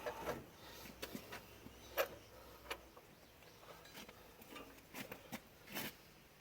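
Scattered light clicks and knocks of hand tools working on metal parts, the sharpest about two seconds in and a few more around five seconds.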